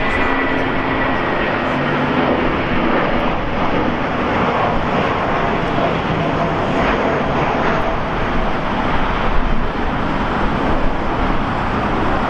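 Jet airliner engines running at the airport: a steady, loud rushing noise with a faint high whine that fades in the first couple of seconds.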